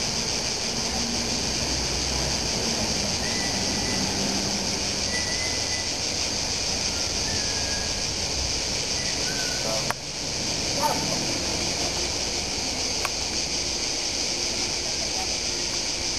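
Steady, high-pitched chorus of singing insects, with a few short bird chirps over it and a sharp click about ten seconds in.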